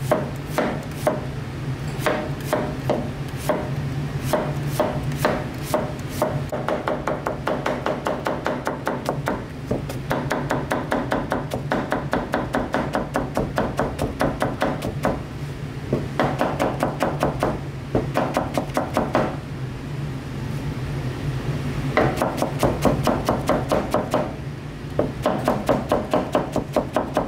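Kitchen knife rapidly slicing zucchini on a cutting board: quick, even chopping strokes, several a second, in runs with brief pauses.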